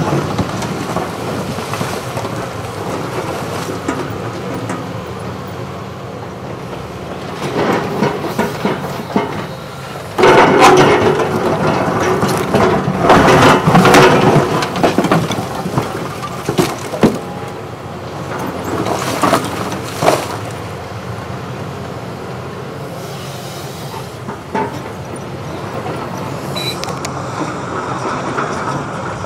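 Caterpillar 320E hydraulic excavator working broken concrete rubble: the diesel engine runs under the loud scraping and crunching of the steel bucket dragging through concrete slabs and debris, with scattered knocks. The scraping is loudest from about 10 to 15 seconds in.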